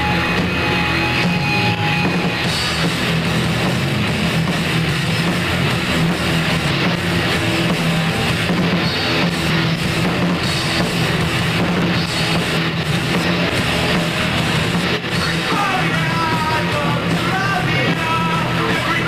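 Live rock band playing a loud, driving punk-rock song on electric guitars and a drum kit, with a voice singing over it near the end.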